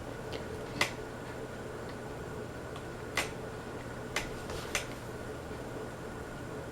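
Harbor Breeze Armory ceiling fan running on high with a steady hum. Four short sharp clicks sound over it, the loudest about a second in.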